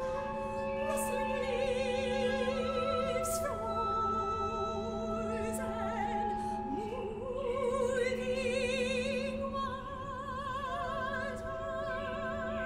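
Contemporary chamber music: a soprano sings slow phrases with wide vibrato over steady held wind notes and a low drone. The wind notes include oboe, piccolo, alto flute and bass clarinets.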